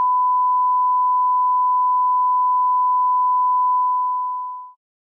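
Steady electronic test tone: one pure, unwavering pitch held for about four and a half seconds, then fading out quickly.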